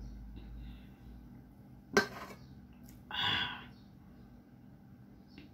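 A soda can set down on a table with a single sharp knock about two seconds in, followed a second later by a short breathy vocal sound from the eater.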